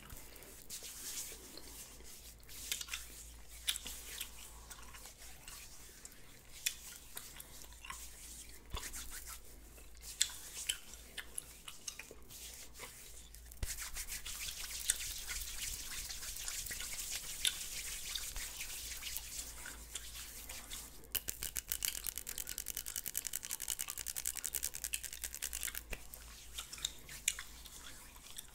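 Bristle brush scrubbed back and forth close to the microphone. Scattered soft clicks come first; about halfway through a steady scrubbing begins, and near the end it turns into fast, even strokes.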